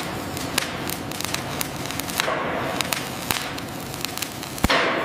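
Electric arc welding: a steady crackling hiss peppered with sharp pops of spatter, swelling louder about two seconds in and again near the end.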